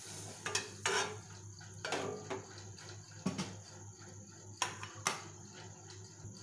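Pots, pans and utensils clinking and knocking: a series of short, separate knocks as cookware is handled on the stove.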